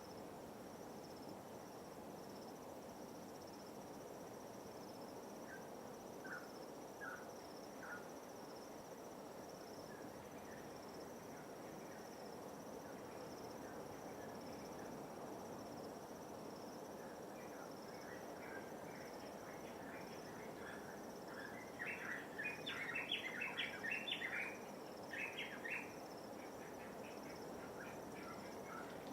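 A steady high-pitched insect trill over a soft, even wash of light waves. Short bird chirps break in now and then and turn into a burst of busy chattering about three quarters of the way through.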